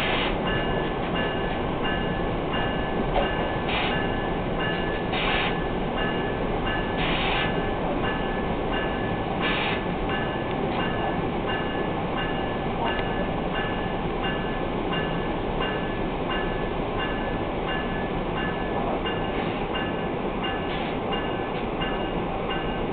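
Inside a New Jersey Transit Multilevel passenger coach running on the rails: a steady rumble and hiss of the moving train, with faint steady high tones over it and a few short bursts of noise in the first ten seconds.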